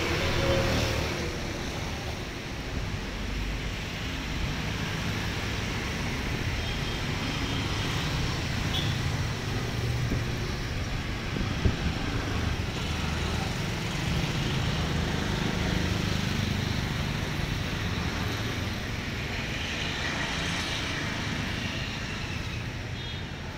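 Steady street traffic noise, a continuous low rumble that slowly swells and eases, with a single sharp click about twelve seconds in.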